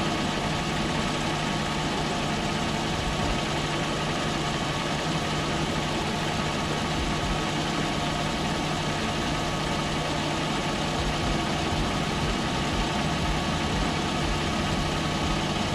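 Metal lathe running steadily as it turns a piece of tough metal, an even machine hum with no breaks.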